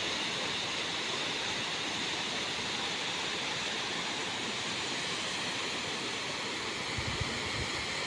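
Tall waterfall's steady rush of falling water, an even unbroken noise, with a few short low bumps about seven seconds in.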